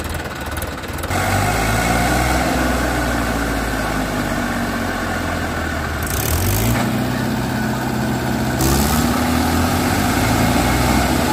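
Diesel engines of a Mahindra Yuvo 575 and an Eicher 380 tractor working hard under load as they pull a mud-stuck tractor and loaded trolley free. The engines rev up about a second in and climb in pitch twice more later.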